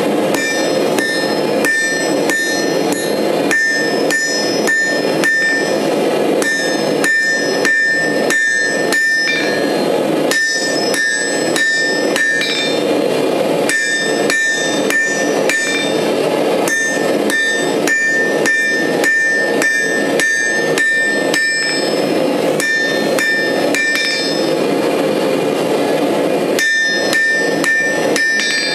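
Hand hammer striking a hot steel graver blank on an anvil, about three blows a second in runs with short pauses, each blow leaving a high metallic ring. A steady rushing noise runs underneath.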